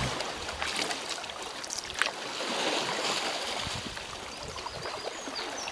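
Water splashing and trickling around a sea kayak as it is paddled, with a sharp knock about two seconds in.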